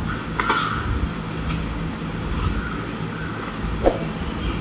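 Banana leaves rustling and crinkling as hands handle them, over a steady low hum, with a few faint clicks.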